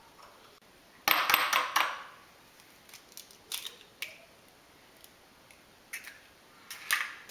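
Kitchen clatter of dishes and utensils. A cluster of sharp clicks and clinks comes about a second in, then a few lighter single knocks follow.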